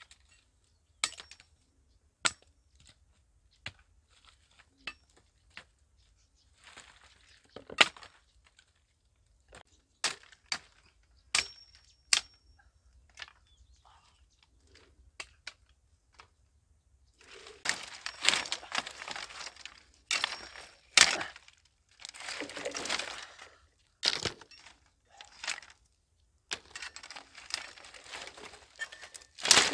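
Dry sticks and branches cracking, snapping and rustling as they are pulled from a pile of brushwood. Single sharp cracks in the first half give way to dense, continuous crackling and rustling about halfway in.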